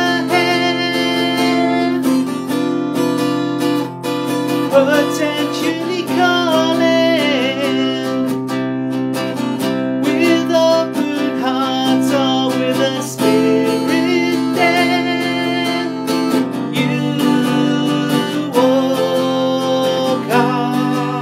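A man singing and strumming an acoustic guitar, an acoustic cover of an 80s synth-pop song.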